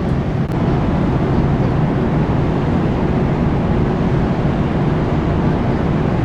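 Steady low rumble of a long-distance car ferry under way: engine and hull noise at cruising speed.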